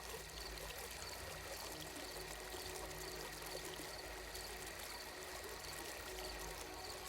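Ambient sleep soundscape of softly running water, like a trickling stream or fountain, over a low steady drone, with a faint high chirp repeating every second or so.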